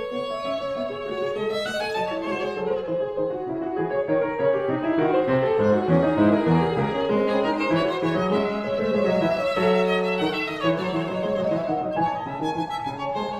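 Soundtrack music led by bowed strings, with violin carrying the melody over lower string notes.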